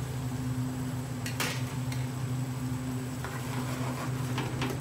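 Metal ladle clinking against a frying pan a few times while sauce is spooned over fish fillets, over a steady low mechanical hum.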